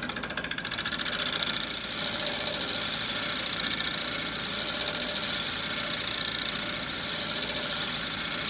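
A freshly sharpened bowl gouge taking a fine, thin shearing cut on the outside of a natural-edge pear bowl spinning on a lathe at 1,000 RPM: a steady hiss of wood being cut, over the lathe running. It flutters rapidly for about the first half-second.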